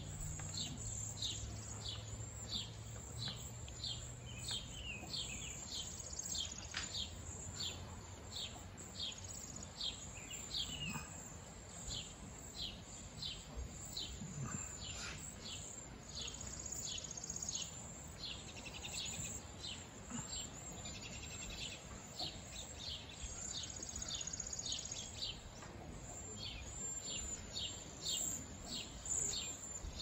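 A flock of cedar waxwings calling: high, thin whistled notes, most of them short and repeated one or two a second, with a few longer drawn-out high whistles mixed in.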